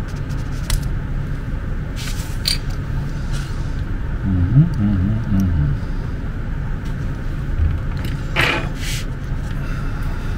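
Steady low background rumble, with a few faint clicks from small plastic battery-holder parts being handled. There is a brief low hum about halfway through and a short scrape near the end.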